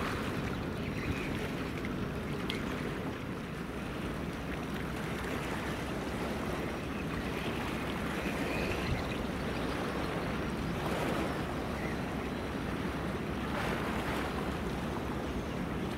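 Water washing and breaking along the hull of a large passing ship, its bow wave and wake, over a low steady rumble, with wind on the microphone.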